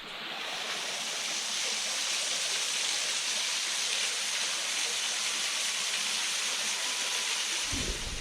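Waterfall: a steady rush of falling water that swells in over the first second. A low rumble joins it near the end.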